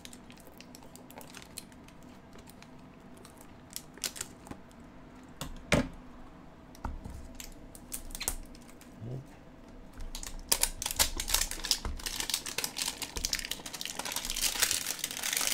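Light scattered clicks and taps as a dull knife works at a shrink-wrapped cardboard trading-card box. From about ten seconds in, a dense crinkling and crackling of the plastic wrap being torn off, growing louder near the end.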